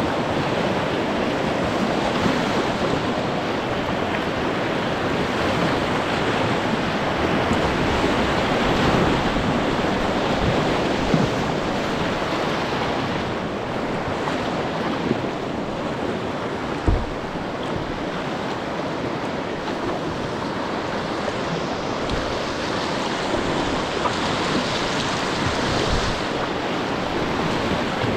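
Steady rush of river water running over a shallow, rocky stretch of the river, with wind buffeting the microphone. A few brief low thumps stand out, the clearest about 11 and 17 seconds in.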